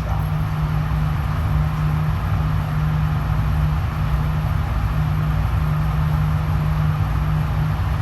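Steady low hum with an even rushing hiss, the constant air-handling noise of an indoor shooting range, with no shots fired.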